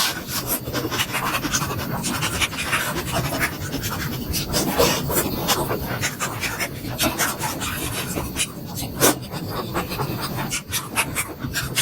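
Close-miked eating sounds: chewing and wet mouth smacks while eating momos, a dense run of small crackly clicks.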